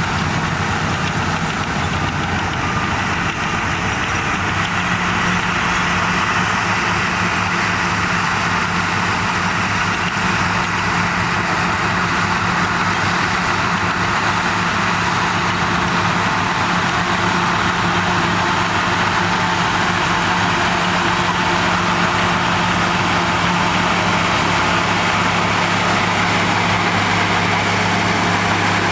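Heavy diesel engine of a Shantui DH17 bulldozer running steadily, with a slight shift in its note about five seconds in.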